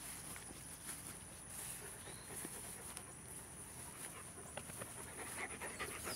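Dog panting softly close by.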